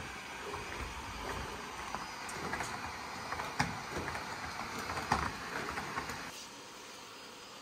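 Humanoid robot's joint motors running with a steady mechanical whir as it throws boxing punches, with a few sharp thuds of its gloved fists hitting a handheld punching pad; the two loudest hits come a little past halfway and about a second and a half later.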